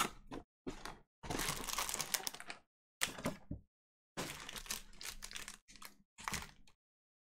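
Plastic wrap and foil pack wrappers on a Panini Prizm football hobby box crinkling and tearing as the box is opened and its packs are pulled out, in a string of short rustling bursts.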